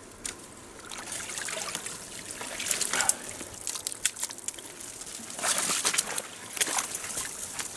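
Water trickling and sloshing, with irregular splashes that grow louder and busier a little past the middle.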